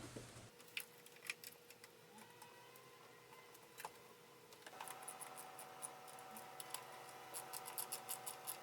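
Faint scattered clicks and taps of small engine parts being handled, coming quicker near the end, over a faint steady hum.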